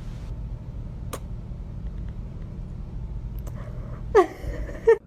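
A steady low rumble throughout, a single sharp click about a second in, and near the end a short cry that drops in pitch.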